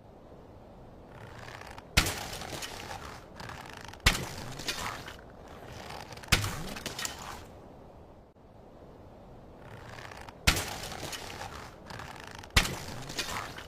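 Sound-effect shots: five sharp cracks, each followed by a short rattling tail. They come about two seconds apart, with a longer pause in the middle.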